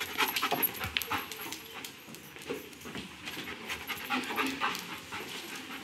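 Police drug-detection dog sniffing rapidly and panting as it searches students' backpacks.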